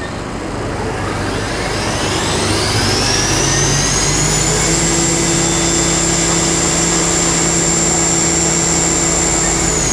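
Spindle of a Haas VF-3 CNC vertical machining center running up to 10,000 RPM: a high-pitched whine rises for about four seconds, then holds steady over a lower hum, and begins to drop right at the end as the spindle slows.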